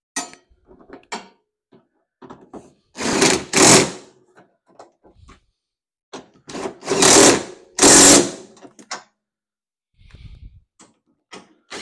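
Cordless DeWalt impact driver with a socket extension running bolts down in short bursts, four in all, in two pairs. Light clinks of tools and parts come between the bursts.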